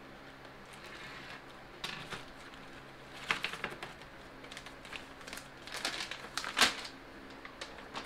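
Plastic bag and paper packing rustling and crinkling as small hardware is unpacked by hand, with scattered light clicks. The loudest rustle comes about six and a half seconds in.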